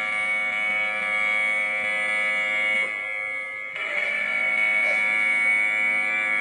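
Emergency Alert System alarm tone played back slowed down: a steady, buzzing chord of several held tones. It drops a little in level just before the three-second mark and comes back louder about a second later.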